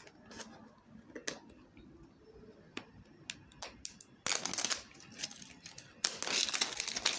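Plastic shrink-wrap on a phone's retail box crinkling as it is handled: a few light clicks and taps at first, then bursts of crinkling from about four seconds in that become steady and loudest near the end.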